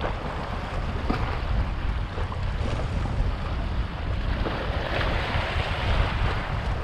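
Wind buffeting the microphone with a steady low rumble, over small waves washing against the rocky shoreline.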